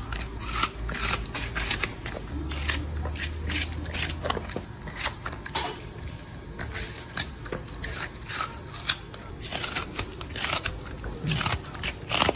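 Shiba Inu puppy biting into and chewing a raw apple held out by hand: a fast, irregular run of crisp crunches.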